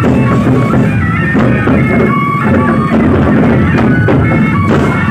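Gendang beleq ensemble playing: big two-headed Lombok barrel drums beaten with stick and hand in a dense, continuous rhythm, with cymbals and a held melodic line over the drumming.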